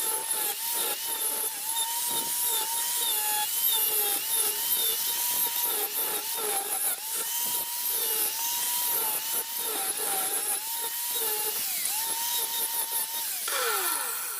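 A small high-speed rotary tool cutting into the chain tensioner's welded metal piece. Its high whine sags in pitch again and again as it bites and recovers, then winds down near the end.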